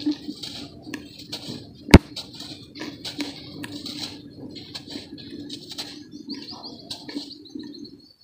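Dry brown dirt lumps crushed and crumbled by hand, the powder pouring down in a stream of crunchy crackles and soft hisses, with one sharp crack about two seconds in.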